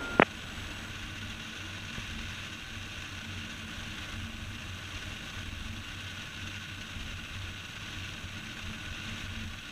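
Cessna 172's four-cylinder engine running at low landing power as a steady, fairly faint drone during the flare and touchdown.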